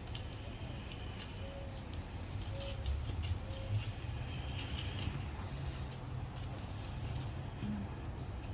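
Wind buffeting the microphone as a steady low rumble, with scattered sharp clicks and a few short faint high notes about a second in.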